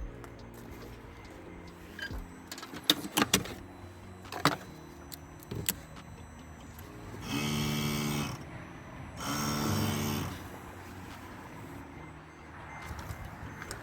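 Electric pump motor of a Mercedes W211's SBC brake hydraulic unit buzzing in two runs of about a second each, after a few sharp clicks, while the SBC system is being deactivated from a diagnostic scanner.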